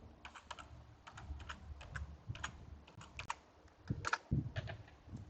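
Irregular keystrokes of typing on a computer keyboard.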